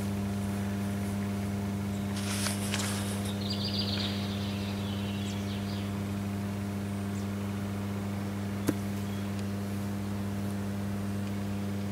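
Steady electrical hum, a low drone with a ladder of even overtones, typical of a power transformer at an electrical substation; one sharp click about three-quarters of the way through.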